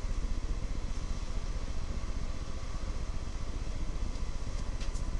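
Steady low rumbling background noise, with a few faint ticks near the end.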